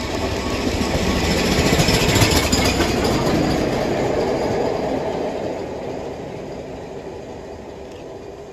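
LMS Jubilee class 4-6-0 steam locomotive 45596 'Bahamas' and its train passing close by on the near track. The noise is loudest about two seconds in, then fades as the train moves away.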